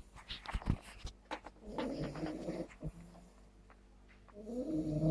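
Staffordshire bull terrier puppy snoring in her sleep: two long snores about three seconds apart, which the owner likens to an old man's snore. A few sharp clicks come in the first second or so.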